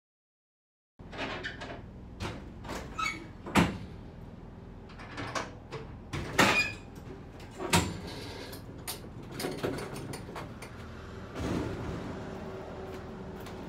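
Irregular knocks and clanks inside an enclosed tool trailer, starting about a second in, with a few sharp loud ones among lighter rattles.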